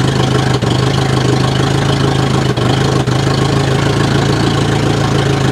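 Ford Cortina Mk3's carburetted engine idling steadily at about 1000 rpm, with a few brief dips in level.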